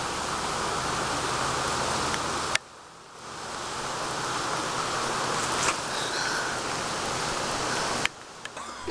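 Steady rushing noise that cuts out abruptly for about half a second near a third of the way in and again near the end.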